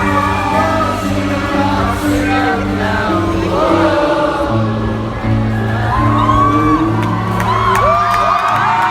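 A rock band playing live through a PA, with a lead vocal over sustained bass notes. Crowd whoops rise over the music in the last few seconds.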